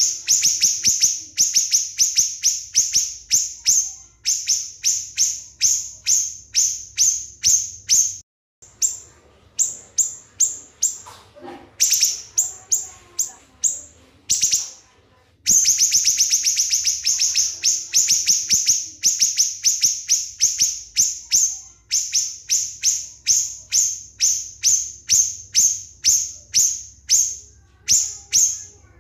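A small songbird singing a rapid 'nembak' series: sharp, high, falling notes repeated about three to four times a second, with two short breaks.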